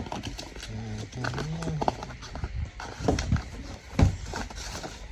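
Irregular knocks and clicks of hard objects being handled, the loudest about four seconds in, while the new pool robot and its parts are unpacked.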